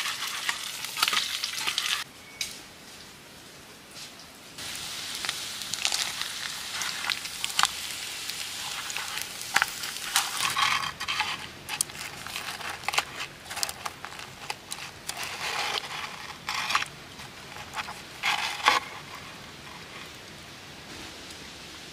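Meat frying in a hot oiled pan, a steady sizzle with frequent sharp pops and crackles. There is a quieter stretch about two to four seconds in, and the sizzle thins out near the end.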